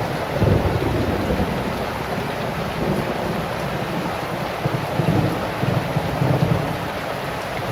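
Heavy rain falling in a steady hiss, with low rumbles swelling up twice: briefly about half a second in, and for longer around the middle to the last third.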